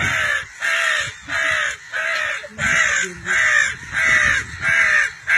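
A person imitating crow caws to call crows: a steady run of harsh caws, about one and a half a second.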